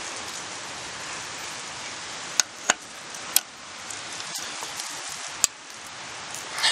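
Socket wrench working a trailer axle spindle nut: a few sharp metallic clicks, unevenly spaced, with a small cluster near the end, over a steady background hiss. The nut is being turned a little further to line up the cotter pin hole after the bearing repack.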